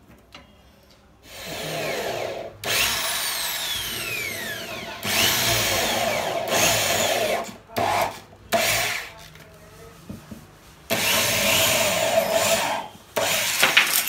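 Corded electric drill boring mounting holes into the wooden side panel of a box bed for a hydraulic lift bracket, run in repeated bursts of a second or two with short pauses between them.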